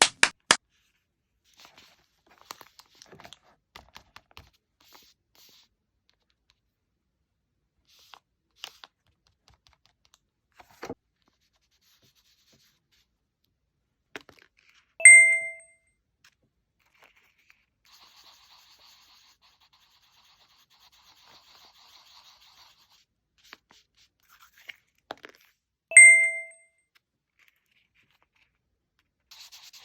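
Two identical bright chime 'ding' sounds about eleven seconds apart, each short and fading quickly. Between them are faint clicks and rustles of paper being handled.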